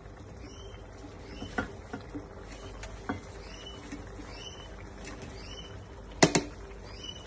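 Fried meatballs tipped from a plate into a pan of simmering stew: a few soft knocks, then a sharp double knock about six seconds in. Under it is a steady low hum and a high chirp that repeats about once a second.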